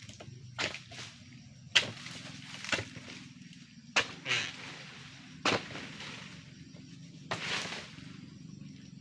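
A series of sharp crunching snaps, about six of them, one every second or so, over a low steady background rumble.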